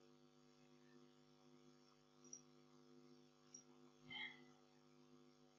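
Near silence: a faint, steady electrical hum, with a brief faint sound about four seconds in.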